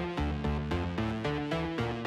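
Background electronic music with a steady pulsing beat, its notes changing about four times a second.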